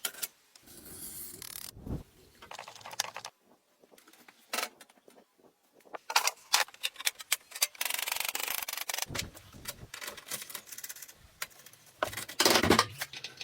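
Hand work on wood: irregular rubbing and scraping strokes among scattered clicks and knocks, with a longer steady scrape near the middle.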